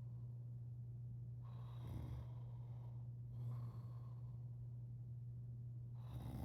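Sleeping man breathing noisily in light snores: a couple of breaths in the first few seconds, over a steady low hum.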